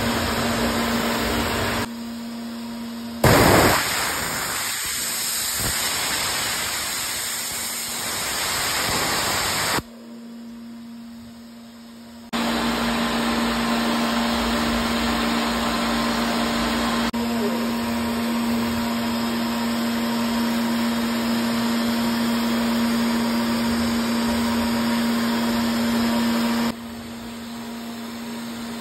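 MultiCam 3000 CNC router at work: the spindle carving into the board while the vacuum hold-down runs, a steady machine noise with a low hum. The level drops and jumps back abruptly several times, with a brief loud burst about three seconds in.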